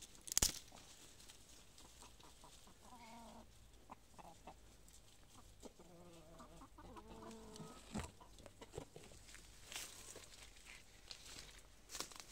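Brahma chickens clucking low and softly: a short call about three seconds in and a longer run of clucks around six to seven seconds. A sharp knock comes just after the start, and scattered crackles of leaves and twigs brushing close by follow.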